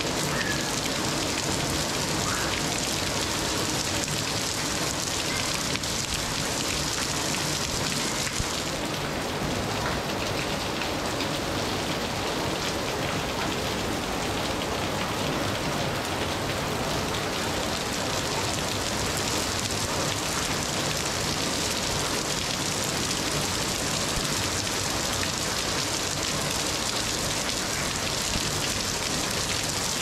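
Steady rain falling, an even hiss of many drops with no letup.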